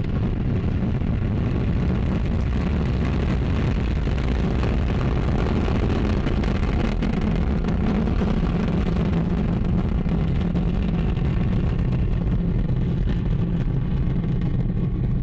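Ariane 5 ECA rocket at liftoff, its Vulcain 2 main engine and two solid rocket boosters firing together: a loud, steady, deep rumble that holds level as the launcher climbs away.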